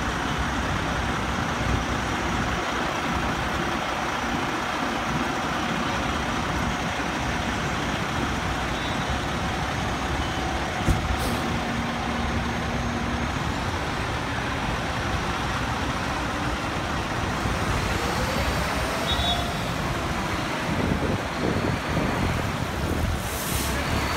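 A fire engine's diesel engine running as the rig pulls away, mixed with steady street-traffic noise. A city bus passes near the end, with a short hiss just before it goes by.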